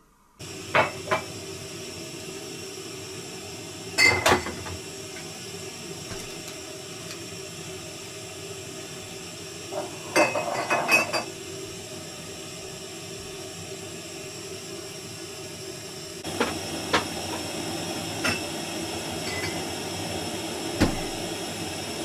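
Camping gas cylinder burner hissing steadily under a steel teapot, with scattered clinks and knocks of metal and dishes.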